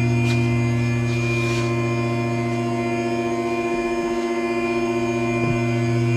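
Car lift's electric hydraulic pump motor running with a steady, even hum as it raises the car.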